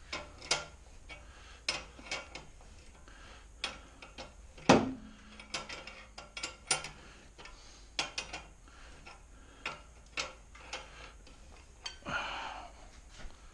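Socket ratchet clicking in uneven strokes as it turns the adjusting screw of an engine hoist's load leveler, tilting the hanging engine. One louder metal clank with a short ring about a third of the way through, and a brief scuffing noise near the end.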